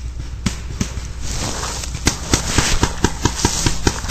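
Paintball markers firing, a string of sharp pops that starts sparse and picks up to about five shots a second about halfway through.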